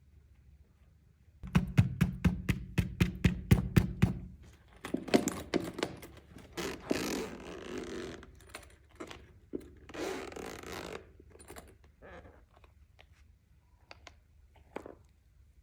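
Clear slime and makeup being handled up close: a run of quick knocks, about five a second, then stretches of scraping and squishing, then a few scattered clicks near the end.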